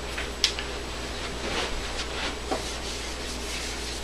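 A sharp click about half a second in, then scattered scraping that gives way near the end to a dry-erase board eraser rubbing across a whiteboard.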